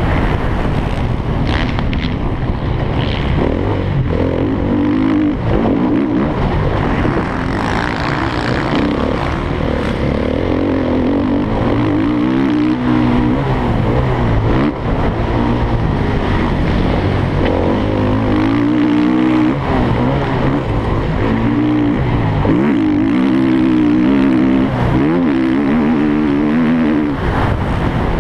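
Motocross bike engine under race load, heard from a camera mounted on the bike, revving up and dropping off again and again as the rider accelerates, shifts and backs off for corners and jumps.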